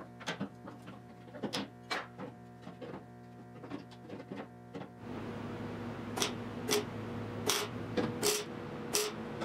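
Hammer taps on the steel roof edge as the roof finishing piece is dressed to fit. About five seconds in, a MIG welder starts tacking the seam, giving a steady hum and several short crackling bursts.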